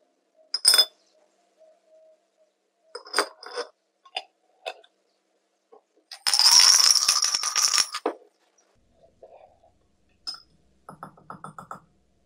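Small steel bicycle cassette parts clinking against glass as they are dropped one by one into a jar of cleaning liquid. About six seconds in, the lidded jar gives a dense rattle for about two seconds as the parts are shaken inside it. Near the end comes a quick run of light metal clicks.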